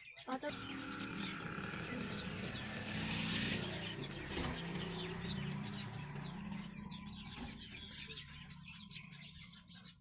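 Handheld gas blowtorch flame roaring as it heats the top of an old diesel engine for a fire start. It comes on suddenly, swells for a few seconds and slowly dies away, with small birds chirping throughout.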